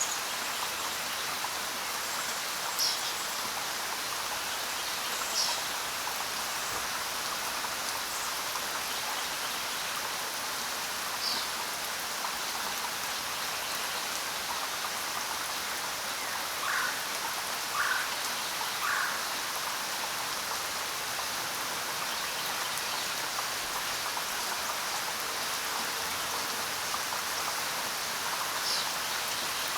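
Steady rain falling on the ground, an even hiss of many drops. A few brief high chirps rise above it now and then, and three short lower calls come in quick succession about two-thirds of the way through.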